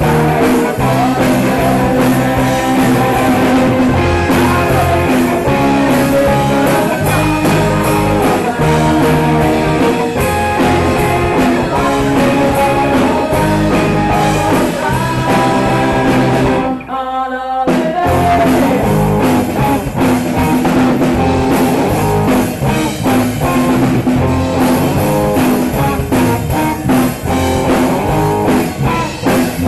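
Live rock band playing: electric guitars, drum kit and a singer. The band stops for about a second partway through, then carries on.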